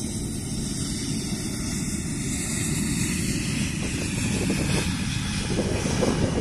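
Jet engines of an Airbus A320-family airliner running as it rolls along the runway, a steady, loud rushing noise that grows slowly louder. Uneven rumbles near the end sound like wind on the microphone.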